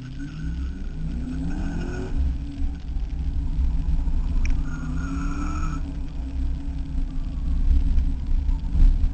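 A 1992 Ford Mustang 5.0's V8 engine heard from inside the car as it accelerates hard. The revs climb, dip briefly about two seconds in, then climb again before levelling off over a heavy low rumble.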